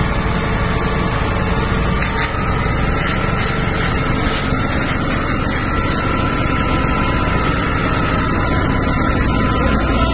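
A fire engine's motor running steadily to drive its pump, under a loud rushing hiss from the hose jet, with a faint whine that slowly rises in pitch.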